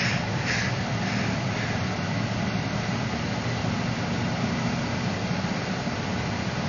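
A steady low mechanical hum with a faint hiss above it, unchanging throughout, with no thunder.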